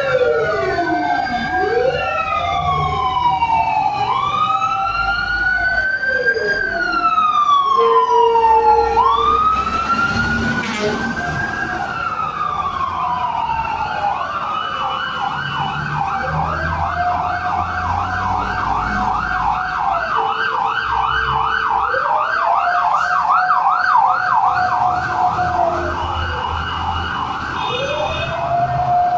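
Several fire truck sirens sound at once, their slow wails rising and falling out of step with each other. About halfway through, one switches to a fast warbling yelp while the slow wails carry on, with truck engine noise underneath.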